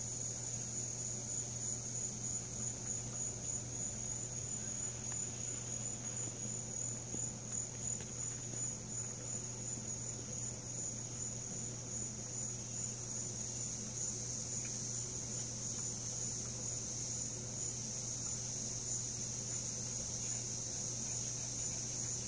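Insects, typical of crickets, trilling: a steady, high, finely pulsed song, over a low steady hum.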